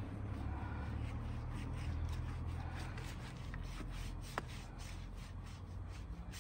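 A paintbrush stroking finish onto the end grain of a wooden tree-stump stool, a steady run of quick scratchy strokes at about three or four a second, over a low steady rumble that fades away.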